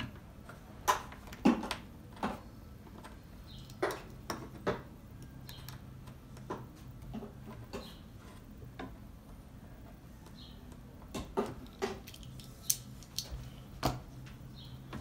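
Stanley knife cutting and stripping the insulation from a black solar cable, heard as irregular sharp clicks, scrapes and taps of the blade, cable and tools against the workbench. A low steady hum sits underneath.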